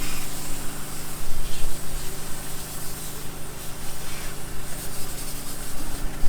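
An engine running steadily, with a broad hissing noise over it and uneven low rumbling.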